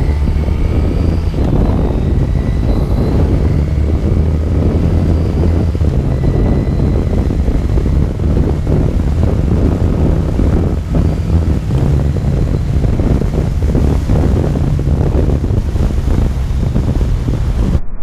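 1982 Yamaha XJ750 Seca's air-cooled inline-four engine running steadily while the motorcycle rides along, with wind noise over the microphone.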